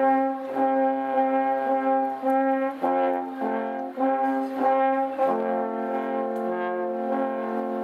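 Four alphorns playing together in harmony: a slow tune of held chords that change every half second to a second, settling into a long sustained chord in the last few seconds.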